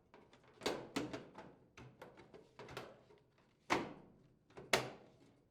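LG electric dryer's plastic control panel being handled and snapped into place on the cabinet: a series of light clicks and knocks, the two sharpest near the end.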